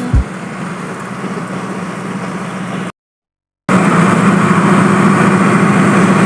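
Steady engine and road noise of a vehicle being driven, with a constant low hum. About three seconds in it cuts off abruptly for under a second, then comes back louder.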